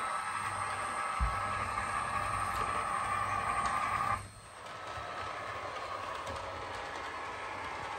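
Model train running on the layout track: a steady whine of the locomotive's motor and the rolling of wheels on the rails. The whine drops away sharply about four seconds in and goes on more quietly.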